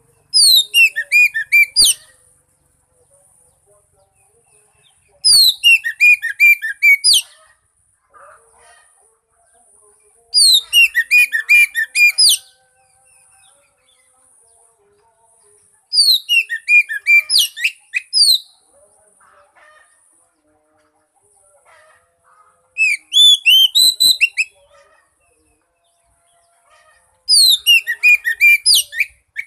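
Oriental magpie-robin (kacer) song: six bursts of rapid, high, sliding notes about two seconds long, one roughly every five seconds, with little sound between them.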